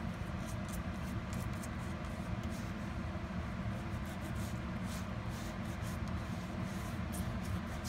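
An old toothbrush spreading dishwashing gel over a greasy metal mesh range hood filter: soft, irregular scratchy brush strokes. A steady low hum runs underneath.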